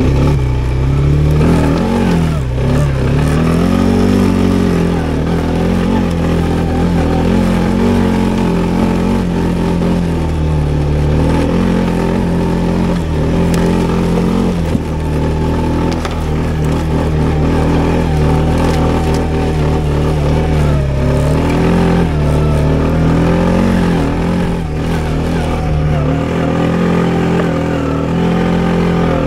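Loncin XWolf 300 ATV engine running under way, its revs rising and falling again and again as the throttle is worked.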